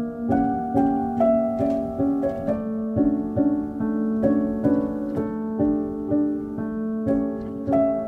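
Background music: a gentle tune of plucked, harp-like notes repeating about twice a second over sustained tones.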